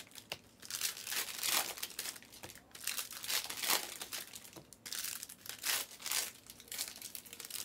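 Plastic and foil trading-card pack wrappers crinkling and tearing as packs are opened, in a run of short irregular rustles.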